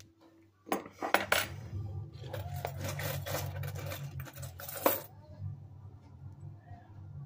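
Silver coins and bars clinking against each other and the board as they are set down and picked up: a run of sharp metallic clicks with a short ring, lasting about four seconds, with a loud clink near the end.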